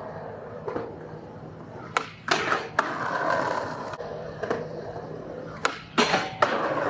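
Skateboard on concrete: wheels rolling, with a string of sharp clacks from the board and trucks. The last clacks come near the end, as the board pops up onto a metal handrail.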